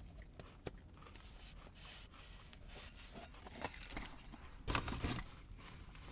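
Faint rustling and handling noises, with a light click under a second in and a short, louder rustle a little under 5 seconds in.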